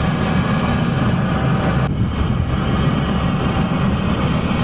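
Steady loud drone of a firefighting aircraft's engines and rushing air, heard on board during a water drop; the tone shifts slightly about two seconds in.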